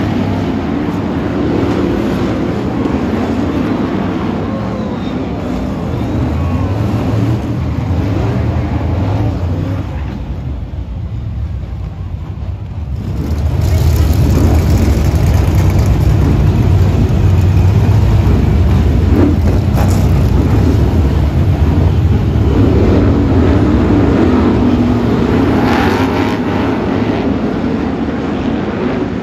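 A pack of BriSCA F1 stock cars racing round a shale oval, their big V8 engines running hard together. The sound drops about ten seconds in and comes back louder a few seconds later, staying loud.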